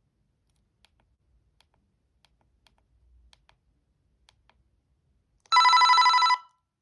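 Panasonic G60 mobile phone playing a short snatch of one of its built-in ringtones through its speaker: a bright, buzzy electronic tone lasting under a second, starting about five and a half seconds in and cutting off suddenly. Before it, faint scattered clicks of the phone's keys being pressed.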